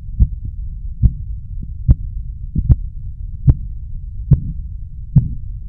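Pulse beats heard through a stethoscope on the brachial artery under a slowly deflating blood pressure cuff: Korotkoff sounds, a sharp thump about every 0.8 s, seven in all, over a steady low rumble.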